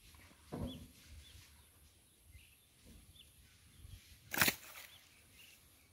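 Water splashes and knocks from a small boat being paddled and worked among cattails: a duller splash about half a second in and a sharp, louder one a little after four seconds. A few faint bird chirps.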